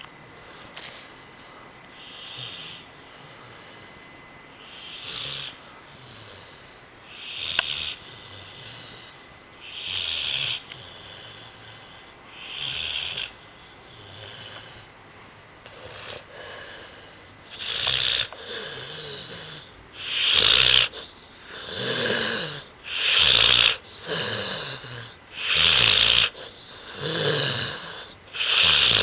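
Pit bull snoring loudly in its sleep, one snore on each breath. The snores come about every two and a half seconds at first, then grow louder and quicker, about every second and a half, over the second half.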